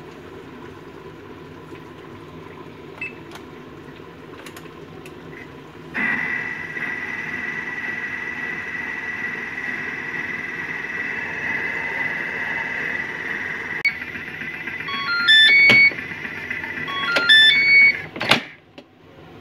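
Thermomix food processor: a single button beep, then about six seconds in its motor starts and runs with a steady whirring whine as the timer counts down. Near the end come two short runs of electronic beeps at stepping pitches, and a click as the motor stops.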